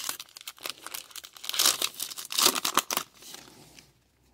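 Plastic trading card pack wrapper torn open by hand, a rapid crackle of crinkling and tearing that is loudest about two seconds in and dies away after about three seconds.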